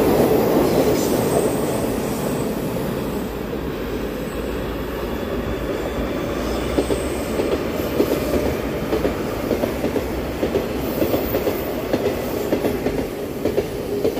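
Metro trains running past on an open-air track, a steady rumble of wheels on rail. From about halfway through, the wheels click over rail joints two or three times a second.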